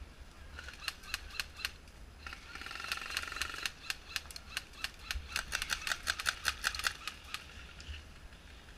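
Airsoft guns firing: sharp clicking shots in short runs, scattered at first, then a quicker string of shots from about halfway through.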